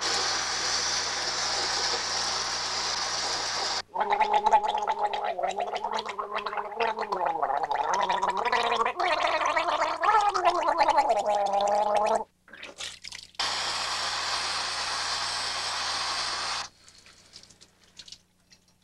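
A man gargling loudly for about eight seconds, the pitch wobbling and bubbling. Before and after it a tap runs with a steady hiss.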